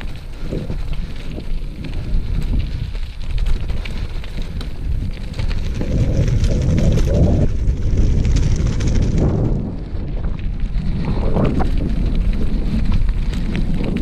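Wind buffeting the camera microphone in low rumbling gusts, swelling about six seconds in and again near the end, over the crunch of gravel and dry leaves underfoot.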